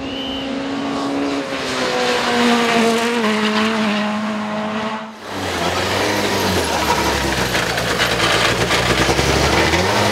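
Rally car engines at speed: a high engine note slowly drops in pitch for about five seconds, then after a sudden cut a deeper, rougher engine note with tyre and road noise takes over.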